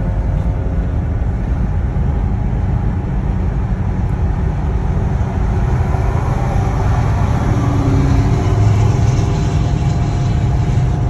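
Steady road and engine noise inside a moving car's cabin at highway speed, mostly a deep rumble from the tyres on the road.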